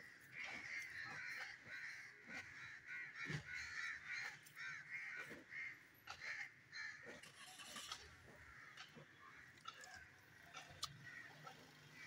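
Crows cawing over and over in quick runs, thinning out after about seven seconds, with scattered faint clicks and scrapes of a knife working on the hide.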